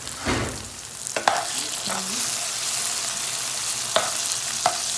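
Minced beef frying in a pot, sizzling steadily and getting louder about a second in, while it is stirred with a spoon that knocks against the pot three times.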